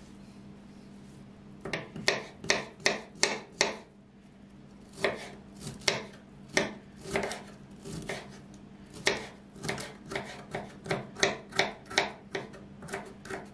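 Kitchen knife chopping broccoli florets on a wooden cutting board: a quick run of sharp knife strikes against the board starting about two seconds in, a short pause, then more uneven chopping strokes.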